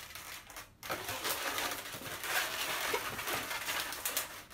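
Inflated latex modelling balloon being gripped, bent and twisted by hand: a scratchy rubbing of latex against skin, starting about a second in after a brief lull.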